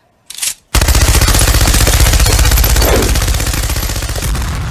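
Machine gun firing one long automatic burst, about ten rounds a second, slowly fading near the end. A short hiss comes just before the first shots.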